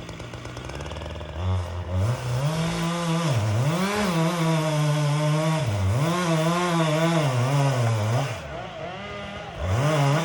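Chainsaw idling, then revved hard while cutting through wood during tree felling. Its pitch sags and recovers several times under load, drops back toward idle near the end, and rises in one short rev before falling away.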